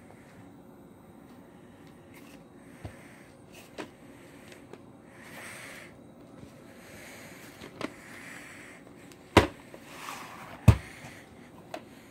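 A VHS cassette and its sleeve being handled: scattered plastic clicks and knocks with soft rustling between, the two loudest knocks a little over a second apart near the end.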